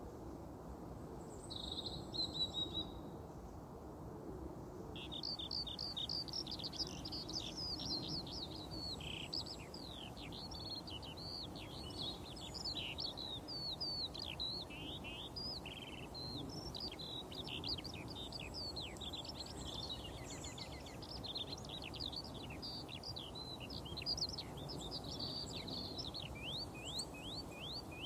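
A songbird singing a long, unbroken run of rapid twittering notes, starting about five seconds in after a brief call, over a low steady background rumble.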